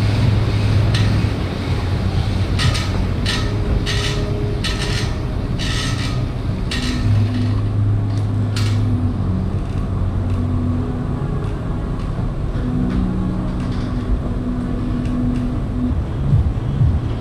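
Air bike's fan whooshing steadily as it is pedalled, with a run of sharp knocks between about two and a half and seven seconds in.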